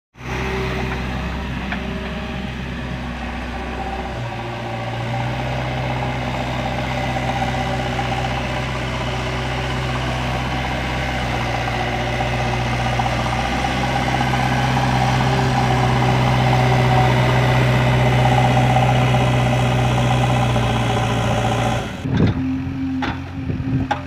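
JCB 3DX backhoe loader's diesel engine running steadily while it works its hydraulics, digging and moving sand. The engine note steps up about four seconds in and holds under load. Near the end it drops away to a quieter running sound with a few knocks.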